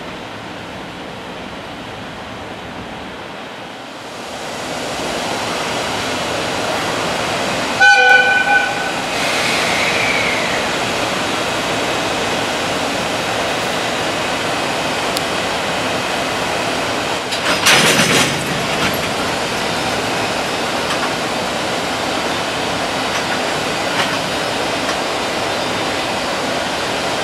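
JR Freight EF210 electric locomotive hauling a container freight train. Its running noise swells about four seconds in, and it gives a short blast on its horn about eight seconds in, followed by a brief squeal. A second loud, brief burst of noise comes about eighteen seconds in.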